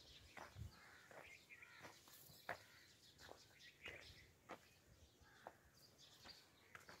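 Near silence outdoors in a rural orchard, with faint scattered bird chirps and soft short ticks.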